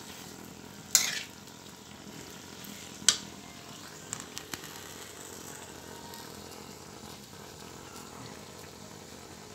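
Mixed vegetables sizzling steadily in a wok as they are stir-fried. A metal spatula knocks sharply against the pan about one second and three seconds in, followed by a few lighter clicks a second later.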